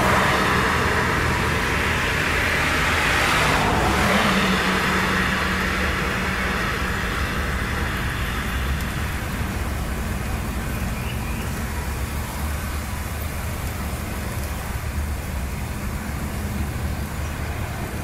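Road traffic noise: a vehicle's tyre and engine sound, louder over the first few seconds, then easing off to a steady low rumble.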